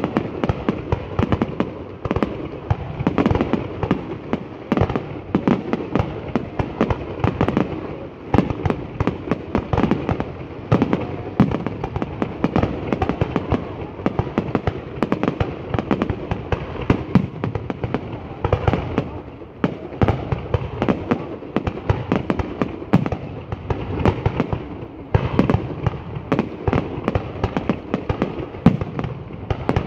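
A fireworks display going off in a dense, unbroken barrage of rapid bangs and crackles, thinning briefly about eight and twenty seconds in.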